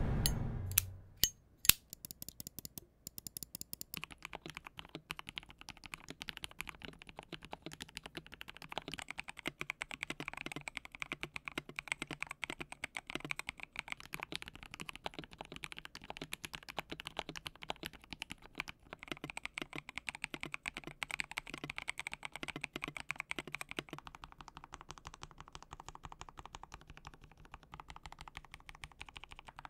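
KBD67 Lite R3 65% mechanical keyboard with lubed switches on a polycarbonate plate being typed on. A few separate keystrokes come first, then steady continuous typing from about two seconds in, with a low-pitched, clean, subdued sound.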